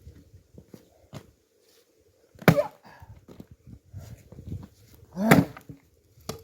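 Two heavy axe strikes into firewood logs, about three seconds apart, each a sharp crack with a brief ring. The logs are not splitting easily, and the splitter suspects a dulled blade.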